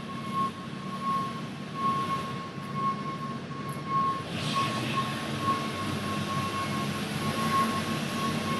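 Overhead log crane running, with a steady low motor hum and a thin high tone that pulses evenly throughout.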